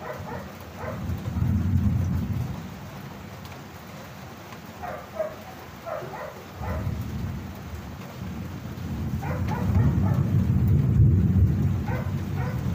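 Steady rain with low rolling thunder: one rumble swells about a second and a half in, and a longer, louder roll builds from about six seconds and peaks near eleven seconds. A dog barks in short runs of a few barks now and then.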